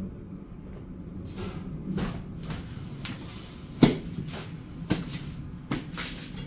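Several sharp irregular clicks and knocks, the loudest about four seconds in, over a steady low hum.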